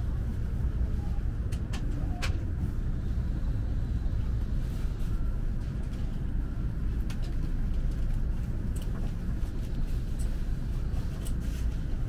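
Steady low running rumble heard inside the cabin of an N700S Shinkansen as it rolls along the station platform, with a few light clicks about two seconds in.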